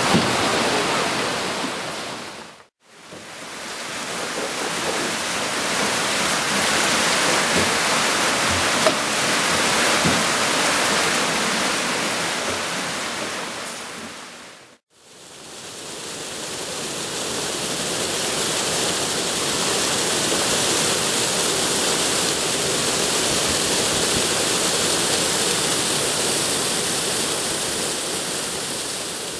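Water rushing and splashing through a turning water wheel. It fades out briefly twice, about three and fifteen seconds in. After the second fade comes the steady, hissier rush of water pouring down a river rapid.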